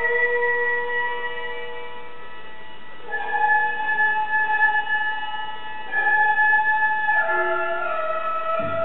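Gagaku court music: long, held notes from a reedy wind instrument in a single melodic line, moving to a new pitch every few seconds and sliding down in two steps near the end.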